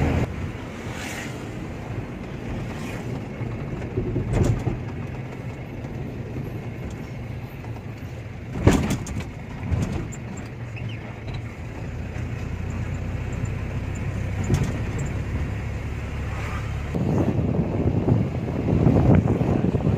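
Canter lorry on the move: a steady engine and road rumble with a few sharp knocks, the loudest about nine seconds in. The rumble grows louder near the end.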